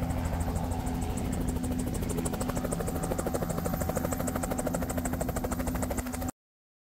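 Helicopter running, with a low steady drone and a rapid, even rotor chop; the sound cuts off abruptly about six seconds in.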